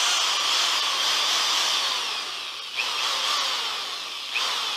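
Handheld electric drill boring a 1/2-inch hole in thick steel plate. The motor's pitch keeps sagging under load and picks up again twice, near the middle and near the end.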